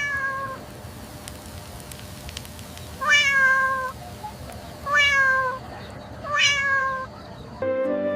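Cat meowing four times: one call at the start, then three more about 3, 5 and 6.5 seconds in, each starting high and dropping in pitch.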